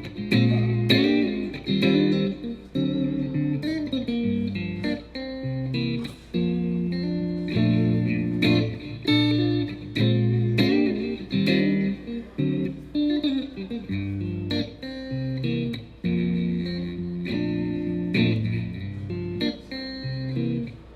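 Music: a guitar playing an instrumental break, picked notes and chords, with no singing.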